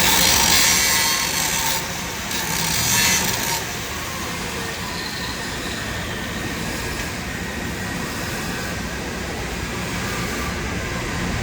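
Argon TIG welding arc hissing on a steel pipe joint over a steady low workshop drone, the hiss louder for the first few seconds.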